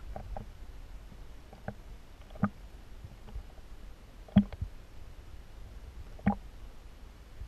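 Muffled underwater background rumble picked up by the submerged camera, with scattered clicks and knocks. Three stand out, about two seconds apart, and the sharpest comes about four and a half seconds in.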